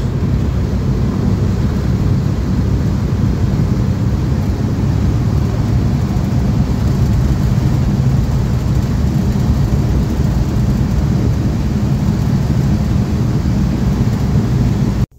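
Steady low drone of an older vehicle's engine and tyres at road speed, heard from inside the cabin; it cuts off abruptly near the end.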